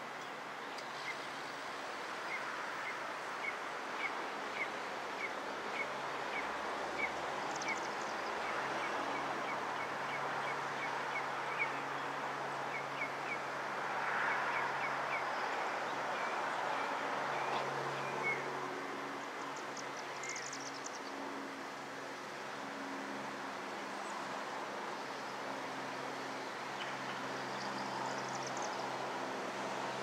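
Steady outdoor background noise with a low drone, likely distant traffic. A bird repeats a short high chirp about twice a second for the first dozen seconds, and a few higher bird calls come later. The siren is not sounding.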